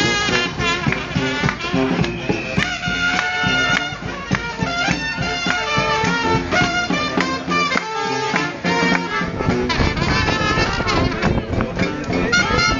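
New Orleans brass band playing a second-line parade tune: trumpets and trombones over a steady drum beat, with crowd voices mixed in.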